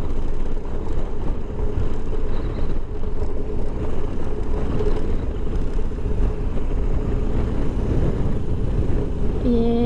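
BMW R 1250 GS boxer-twin engine running steadily at low riding speed on a sandy dirt track, with a low rumble and road noise throughout. A brief steady tone sounds just before the end.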